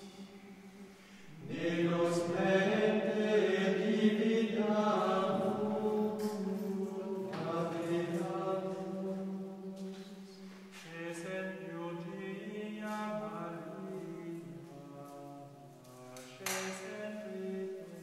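Premonstratensian canons singing Gregorian chant in Latin, sustained notes moving slowly from pitch to pitch.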